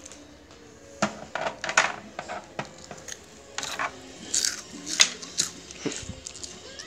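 Small plastic toy figures being handled and moved by hand, making scattered clicks, taps and rustles, with camera handling noise.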